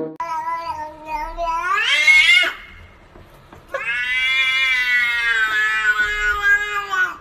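A domestic cat giving two long, drawn-out meows. The first rises sharply in pitch toward its end. The second, about a second later, is longer and holds steady.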